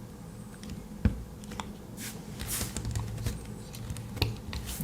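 Victorinox Soldier Swiss Army knife being worked with one hand: a sharp click about a second in, then a few fainter clicks and light handling noise.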